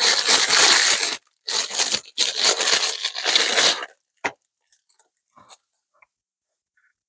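Packaging being torn and crinkled open by hand, in three rough bursts over the first four seconds, followed by a few light clicks and taps.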